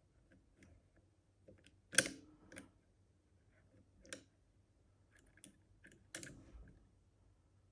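Faint metallic clicks and ticks of an Easi-T lever lock being picked, the pick and tension wire working the levers inside the lock. The sharpest click comes about two seconds in, another about six seconds in, with lighter ticks between.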